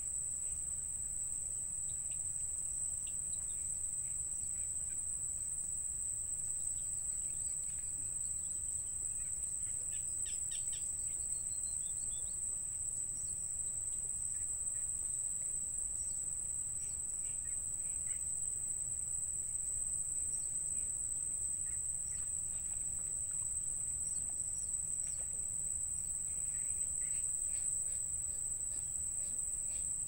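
Insects droning in one steady, unbroken high-pitched whine, with scattered short bird chirps over it.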